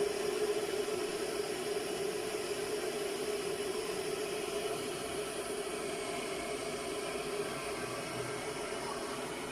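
Micromatic MCK-1850 2 L electric kettle heating water: a steady rushing hiss with a low hum running under it.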